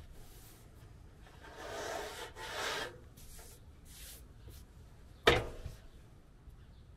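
Glass stove cover being handled on a wooden countertop: a scraping rub lasting about a second and a half, then one sharp knock about five seconds in.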